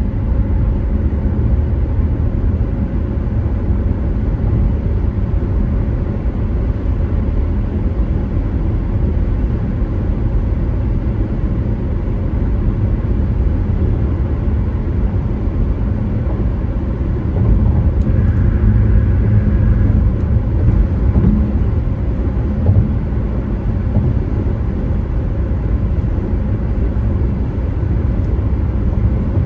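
Car driving along, a steady low rumble of road and engine noise that swells a little about two-thirds of the way through.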